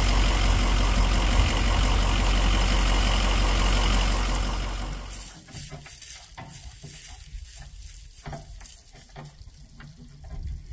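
Ford Power Stroke diesel pickup running at a slow crawl, a steady low rumble with the crackle of its tyres rolling over dry leaves. About five seconds in it cuts off abruptly to a much quieter outdoor stretch with a few faint clicks and knocks.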